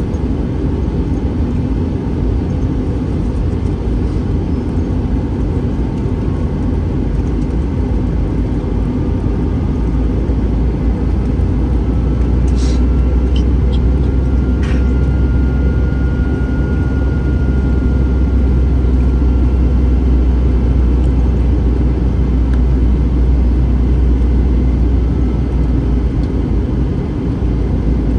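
Cabin noise inside an Airbus A321 airliner: a steady low rumble of engines and airflow that swells louder a little before halfway and eases off near the end, with a faint high whine and two short clicks in the middle.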